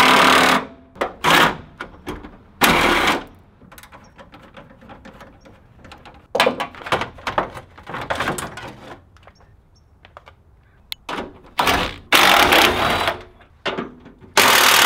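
Cordless drill-driver running in repeated short bursts, backing out the small Torx screws that hold a truck's grille, with light clatter of metal and plastic between the bursts.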